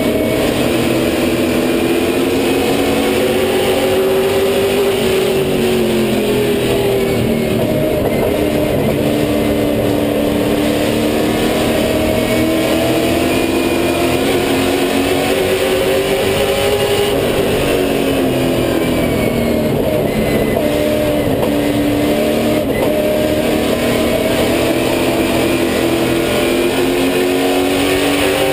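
Super Late Model stock car's V8 racing engine at full race pace, heard from inside the cockpit. Its pitch climbs for several seconds and then drops off, again and again in long swells as the car laps the oval.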